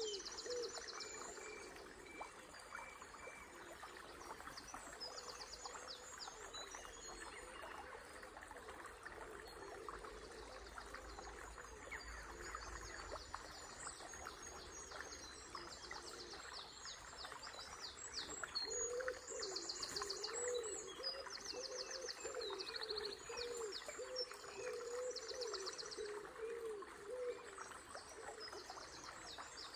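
Small river water running steadily, with songbirds chirping and trilling in high, quick phrases throughout. From about two-thirds of the way in, a pigeon coos in a low, repeated phrase for several seconds.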